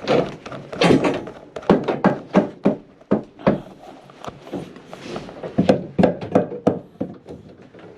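A run of irregular knocks and thunks, a few a second, from hand work on the plumbing.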